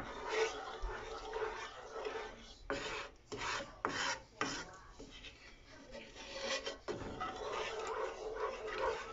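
Wooden spatula scraping and rubbing across the bottom of a nonstick skillet while a flour gravy is stirred as it thickens, with a run of quicker, sharper strokes about three seconds in.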